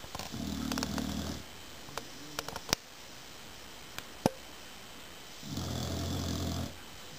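Boxer dog snoring in her sleep: two long snores, one near the start and one near the end, with a couple of sharp clicks in between.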